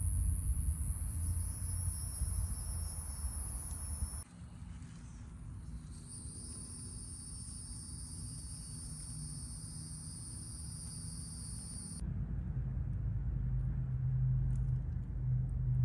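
Outdoor ambience of insects chirring in a steady high drone over a low rumble. The background changes abruptly at cuts, about four, six and twelve seconds in.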